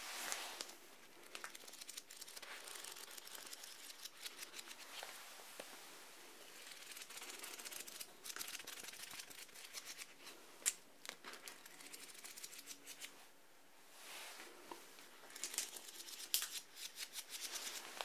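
A pad of paper handled and flicked close to the microphones: dry rustling and crinkling full of fine ticks, with a couple of sharper snaps, one past the middle and one near the end.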